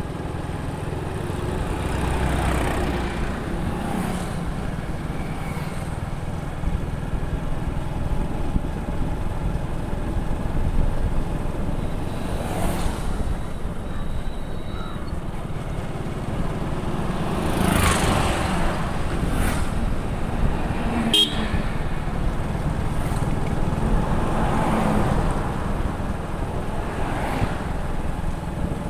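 Motorcycle riding at road speed: steady engine rumble with wind and road noise, and other vehicles swelling past now and then.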